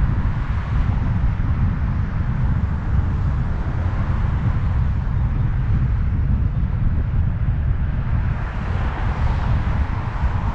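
Wind rumbling and buffeting on the microphone of a moving bicycle, over a steady hiss of road and traffic noise that swells about eight seconds in.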